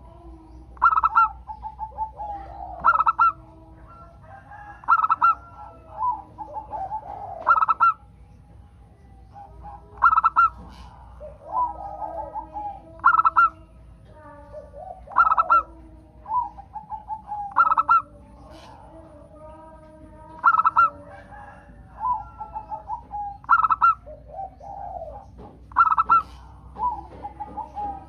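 Zebra doves (local perkutut) cooing: a loud, quick staccato phrase repeats about every two to three seconds, with softer rolling coos in between.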